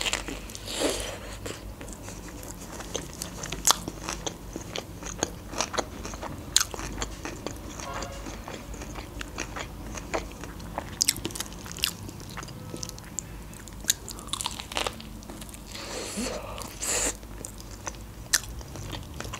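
Close-up chewing of a fried sushi roll: a bite, then steady mastication with many short, sharp crunches and wet mouth clicks scattered throughout.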